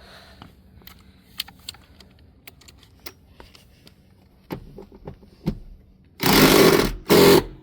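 Light clicks and knocks of hardware being handled, then near the end a power drill runs in two short bursts, the first about a second long and the second about half that, running down the seat-mounting bolts.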